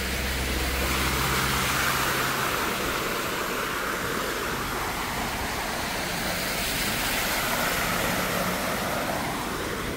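Vehicles driving one after another through deep floodwater: tyres ploughing through the water and throwing up spray, heard as two swells of rushing, splashing water over a low engine hum.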